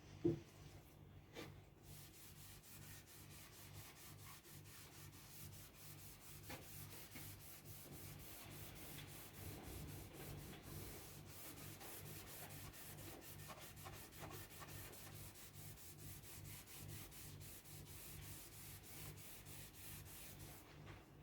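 Quick, even strokes of a hand rubbing over a veneered wooden speaker cabinet, going on for most of the time, with a single knock at the very start. A low steady hum runs underneath.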